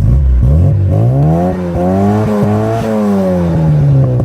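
Car engine revving: the note climbs over the first couple of seconds, holds, then slowly falls back, over a steady low running note.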